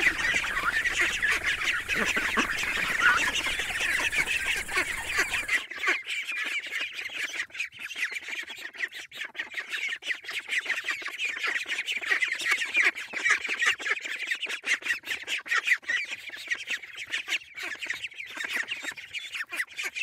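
Eastern spot-billed duck ducklings peeping continuously, many high, short calls overlapping in a busy chorus. About five and a half seconds in, a low background rumble cuts out abruptly and the peeping goes on.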